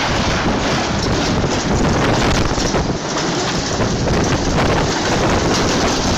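Storm-force wind blowing hard across the microphone: a loud, steady rush of noise with no let-up.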